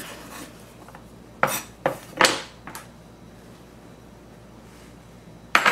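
Chef's knife and a small ceramic bowl knocking and scraping on a wooden cutting board as diced tomato is gathered up. There are four short knocks and scrapes in quick succession about a second and a half in, then one sharp knock near the end.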